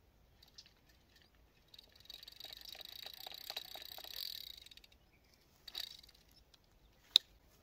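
Baitcasting reel on a fishing rod clicking rapidly for about three seconds as it is worked by hand, then one sharp click near the end.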